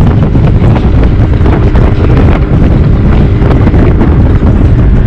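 Heavy wind buffeting the microphone as an outboard-powered boat runs at speed, with the motor's steady drone underneath.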